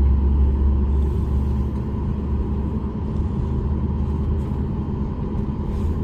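Steady cabin noise inside a Boeing 737 MAX 8 with its CFM LEAP-1B engines running: a deep rumble under a steady hum. The rumble eases slightly about a second in.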